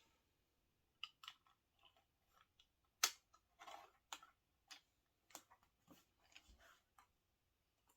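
Faint, scattered clicks of small plastic Lego pieces being handled and pressed together, the sharpest about three seconds in.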